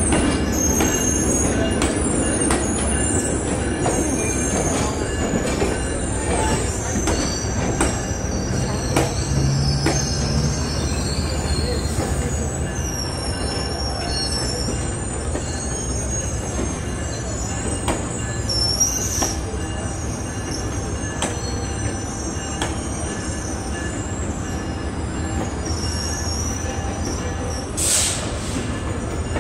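Metrolink bilevel commuter train rolling slowly along the track, its steel wheels squealing in high, wavering tones over a steady low rumble. A brief burst of noise comes near the end.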